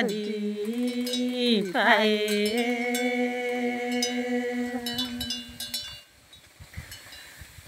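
A single voice chanting a Karen tha poem unaccompanied, holding long drawn-out vowels on steady pitches with slow slides between them. The held note fades out about six seconds in, leaving a short quiet breath before the next line.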